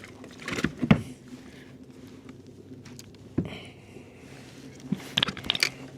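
Scattered sharp knocks and clatters on a kayak, in a few clusters.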